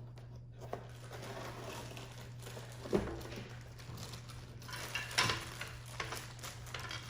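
Plastic toy pieces being handled and set down, with light rustling and a few knocks, the sharpest about three seconds in and again about five seconds in, over a steady low hum.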